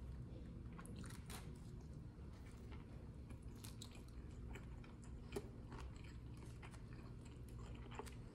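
Faint close-up chewing of a mouthful of cheeseburger: soft wet mouth smacks and small clicks scattered through, with one sharper click about five seconds in.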